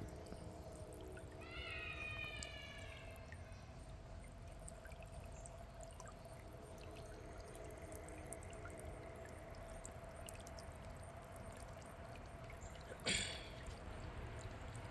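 Small solar-powered planter fountain, water trickling and splashing steadily. A brief falling call is heard about two seconds in, and a short bump near the end.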